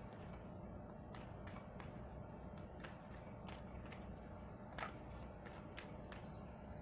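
A tarot deck being shuffled by hand: faint, scattered flicks and clicks of cards against each other, with one sharper snap about five seconds in.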